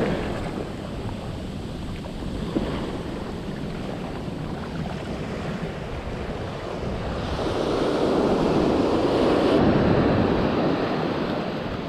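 Ocean surf washing up over the sand, swelling louder for a few seconds past the middle as a wave rushes in, with wind buffeting the microphone.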